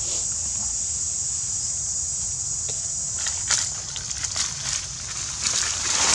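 Steady high-pitched insect drone, with dry leaf litter crunching and rustling in irregular bursts from about three seconds in as a macaque moves across it.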